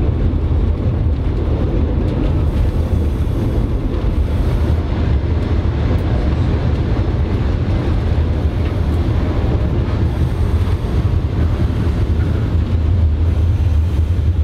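Vintage CPH 'Tin Hare' railmotor running along the track, its diesel engine and running gear giving a steady low rumble heard from inside the cab.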